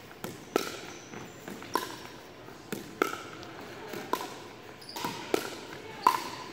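Pickleball rally: hard paddles hitting a hollow plastic ball, about seven sharp pops at uneven intervals, each ringing briefly in a large gym hall.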